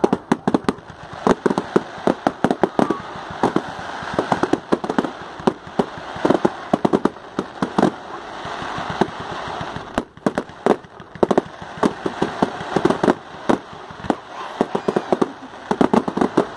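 Fireworks going off: a rapid, irregular run of sharp bangs and crackles, several a second, with a brief lull about ten seconds in.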